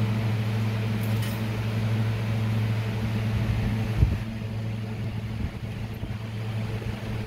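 A steady low mechanical hum, like a motor or appliance running, with one soft knock about four seconds in.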